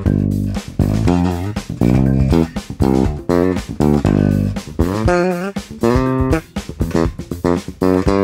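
Five-string electric bass guitar played solo: a busy line of plucked notes with sharp, clicky attacks, some notes short and some held.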